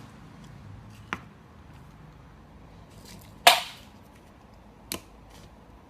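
A few brief sharp clicks or knocks over a faint steady background, the loudest a short hissy burst about three and a half seconds in that dies away quickly.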